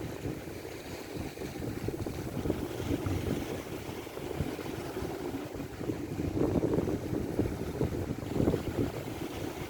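Strong wind buffeting the microphone in uneven gusts, heaviest about six to nine seconds in.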